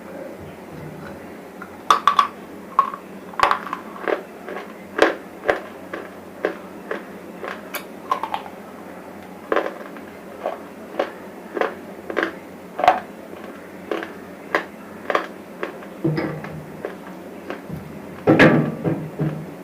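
Dry bar chips crunched between the teeth, a steady run of short, sharp crunches about one or two a second, with a louder burst of bites near the end.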